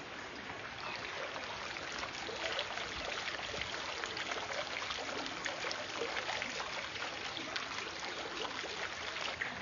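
Water trickling and splashing steadily into a courtyard fountain's stone basin.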